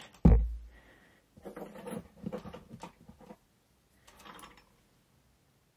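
A single low thump just after the start, then scattered light clicks and rustles of fabric and thread being handled at a sewing machine; the machine itself is not running.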